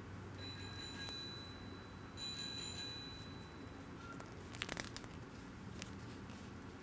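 High, thin electronic ringing from a children's sound book's small speaker: one steady tone, joined about two seconds in by a second, richer ring. It is followed by a short cluster of clicks, like the book being handled.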